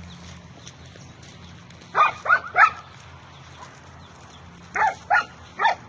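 Dog giving short yelping cries, three about two seconds in and three more near the end. These are the cries of an injured dog whose hind legs are paralysed after being hit by a car.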